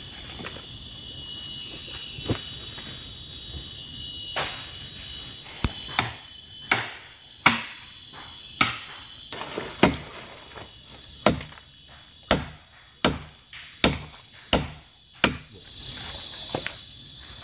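Parang (machete) chopping wood by hand: a series of sharp strikes, sparse at first, then coming about every three-quarters of a second from about six seconds in. Behind them is a steady high-pitched drone of jungle insects.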